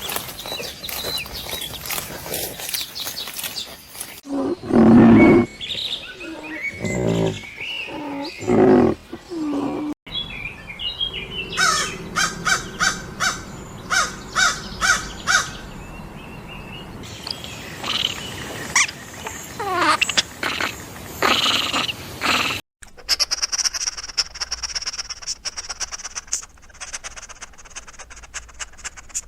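A run of different animal calls in separate clips: bird chirps and clicks, low pitched calls, a rapid series of evenly repeated calls and gliding cries, ending in a steady high hiss.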